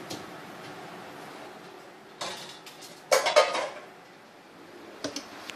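A kitchen drawer pulled open with the metal cutlery in its tray clattering and clinking, loudest a little after three seconds in, after a single knock about a second earlier and followed by a couple of small clicks.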